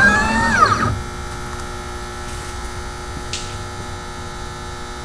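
Two NEMA 23 stepper motors driven by an Arduino with a gShield, whining in tones that glide up and down in pitch as the X and Y axes trace a circle together, then stopping about a second in. A faint steady hum remains, with a brief tick a little past three seconds.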